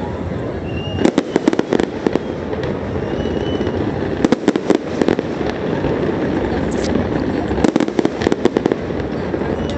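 Fireworks display: clusters of sharp crackling reports about a second in, around the middle and near the end, over a steady low rumble.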